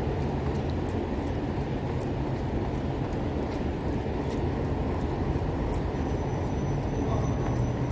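Footsteps running up concrete stairs, a light tap at each step about three times a second, over a steady low rumble of noise on the handheld phone's microphone.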